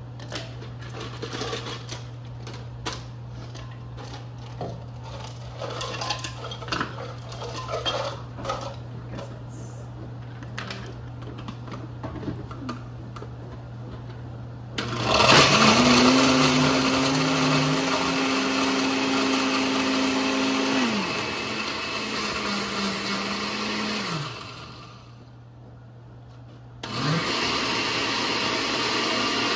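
Ingredients clinking and knocking as the blenders are loaded, then, about halfway in, electric blender motors start crushing ice and frozen pineapple chunks: a steady loud whirr whose pitch drops after about six seconds and stops, followed by a second shorter run near the end.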